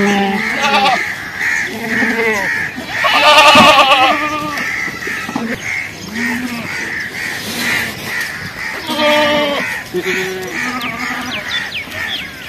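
Goats bleating: a series of calls, the loudest a long quavering bleat about three seconds in and another about nine seconds in, with deeper short bleats between them. A faint chirp repeats about twice a second in the background.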